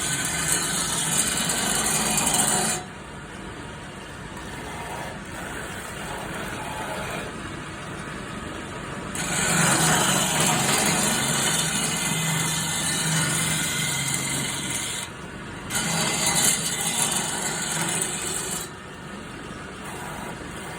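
Homemade wood lathe running, with a turning tool cutting into the spinning wood in three loud spells of scraping. Between the spells the lathe motor hums more quietly.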